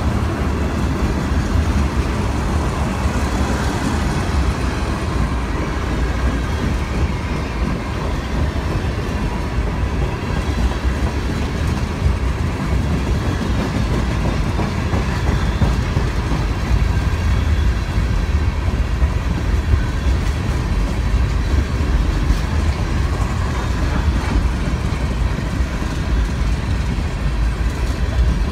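A freight train's tank cars rolling past close by: a steady noise of steel wheels running on the rails.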